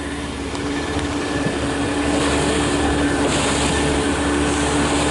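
Motorboat engine running steadily with a constant hum, under a rush of wind and water noise that gets a little louder about two seconds in.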